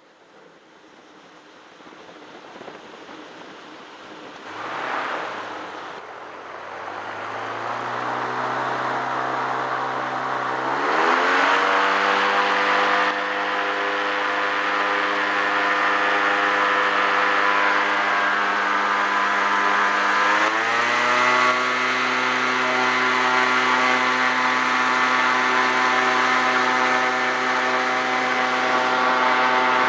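Airboat engine and propeller building from quiet, rising in pitch in two steps, about 11 and 20 seconds in, then running steadily at speed as the boat gets under way.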